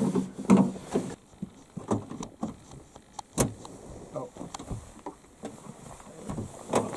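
A screwdriver scraping and clicking against a van's door frame and window seal as it is worked into the gap to pry the door open, with a sharper click about three and a half seconds in.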